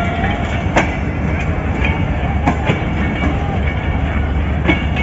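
Pakistan Railways passenger train rolling slowly past as it departs: a steady low rumble of the coaches, with a few sharp clacks from the wheels passing over rail joints.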